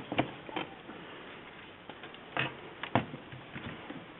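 Handling noise of a portable typewriter being turned upside down: a few sharp knocks and clunks with lighter ticks and rattles between them. The loudest knocks come about two and a half and three seconds in.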